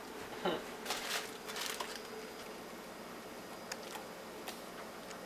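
Quiet kitchen handling noises: a few short clicks and rustles, mostly in the first two seconds, over a steady low electrical hum.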